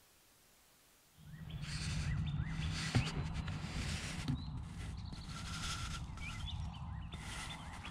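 Songbirds chirping and calling over repeated bursts of rustling noise and a low hum, starting about a second in after near silence.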